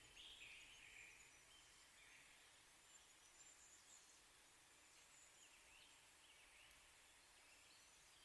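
Near silence, with a faint forest ambience of scattered high chirping calls, a little stronger in the first couple of seconds and then thinning out.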